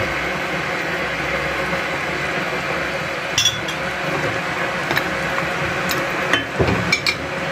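Metal spoon clinking against the pan and bowl while tomato paste is spread over pork ribs stewing in the pan, once about three and a half seconds in and several times near the end, over a steady hiss.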